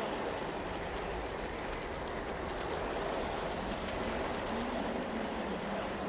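Lava flow burning into forest vegetation: a steady rumbling roar with faint crackling.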